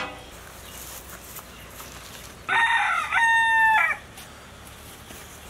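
A rooster crowing once, a call about a second and a half long that breaks up at first and then holds a steady high note.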